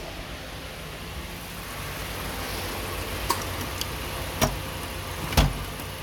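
Mazda CX-7 engine idling steadily, with a few sharp clicks and, near the end, a louder clack with a low thud: the new air-conditioning compressor's magnetic clutch engaging.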